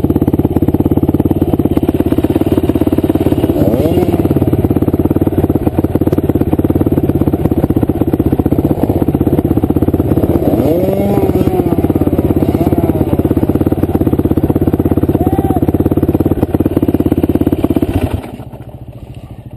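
KTM enduro motorcycle engine idling steadily and loud close to the microphone, then cutting off suddenly near the end.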